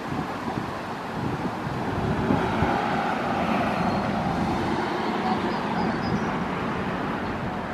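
Outdoor road traffic noise: a vehicle passing, the sound swelling about two seconds in and holding steady.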